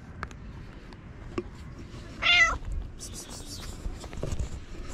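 Ginger stray cat meowing once, a short call about halfway through.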